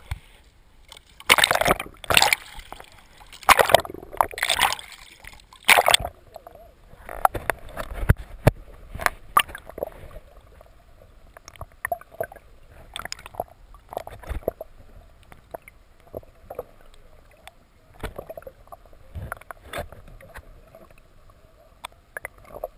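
Sea water splashing and sloshing loudly against a GoPro's waterproof housing in several bursts over the first six seconds as it is plunged through the surface. It then turns to muffled underwater sound: scattered knocks and clicks over a faint steady hum.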